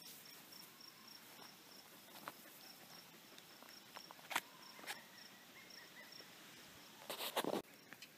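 Insects chirping in short, evenly repeated high-pitched pulses, with a few faint clicks and a brief louder rustle about seven seconds in.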